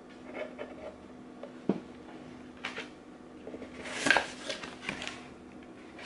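Things being handled in a cardboard subscription box: scattered rustles and light knocks, with a sharp knock a little under two seconds in and the loudest rustling about four seconds in.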